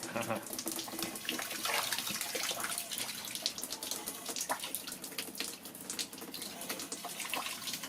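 Water running from a tap, with many small splashes.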